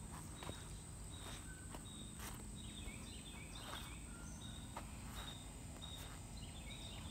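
A steady high-pitched insect drone with short bird chirps over it, in little falling runs twice, and scattered soft steps and clicks on sandy ground.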